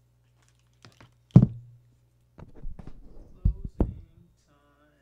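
Knocks and thumps of gear being handled over a low steady electrical hum, with the loudest thump about one and a half seconds in and a quick cluster of taps and knocks after it. Near the end the hum stops and a short held tone chord sounds.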